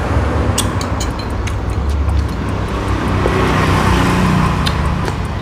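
Steady low rumble of road traffic, with a few light clinks of a metal spoon against a porcelain bowl.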